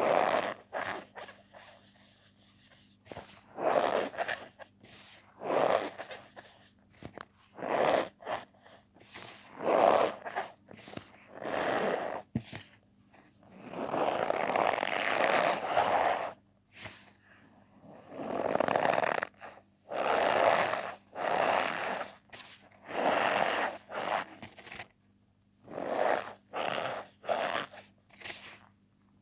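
Gym chalk mixed with cornstarch being squeezed and crushed by hand, making a squeaky crunch with each press. The presses come in repeated strokes of half a second to two seconds, with short pauses between them.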